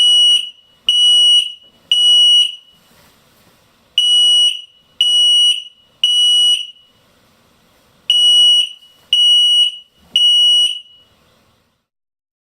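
Abus Smartvest FURM35000A smoke alarm sounding its piercing high beep in the temporal-three pattern: three groups of three half-second beeps, about a second apart, with a pause between groups. It stops about eleven seconds in.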